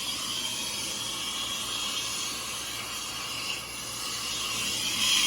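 A soldering torch with a big tip, burning steadily with a hiss as it heats a 1.5-inch copper fitting for sweat-soldering. The hiss dips slightly about three and a half seconds in and grows louder near the end.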